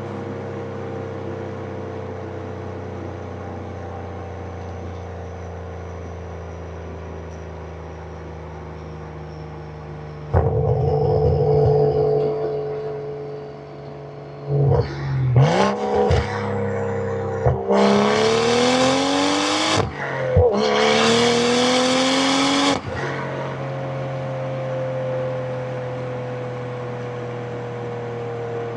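Tuned turbocharged Supra inline-six heard on a drive: it cruises steadily at first, then about ten seconds in the throttle opens suddenly and the engine gets much louder. Quick revs and shifts follow. Two hard pulls with rising pitch come next, broken by a short gear change, with a strong rushing hiss over the engine note. It then settles back to a steady cruise, its pitch slowly falling. No exhaust pops or burbles are heard on lift-off, as the tune has them turned off.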